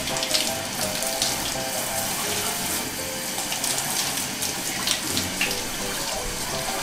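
Handheld shower head running steadily, its spray splashing over a wet cat and onto a plastic toilet lid, with light background music.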